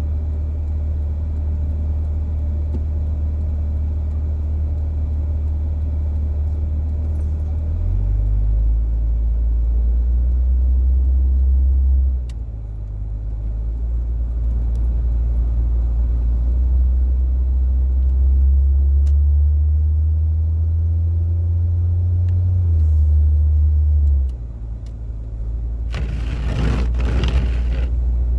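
Interior drone of a four-wheel-drive vehicle driving on a snow-covered road, its low engine and road rumble stepping up and down a few times. A brief rush of noise comes near the end.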